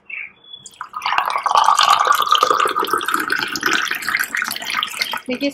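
Freshly squeezed sweet lime juice pouring in a thin stream into a glass, splashing and frothing. It starts about a second in, and its pitch rises slightly as the glass fills.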